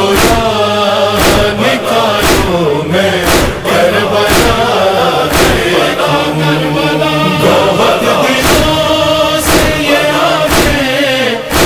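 Noha lament music: a chorus of male voices chanting a wavering melody over a steady beat that falls about once a second.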